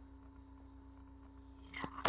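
Quiet room tone with a faint steady electrical hum, then a brief spoken "yeah" near the end.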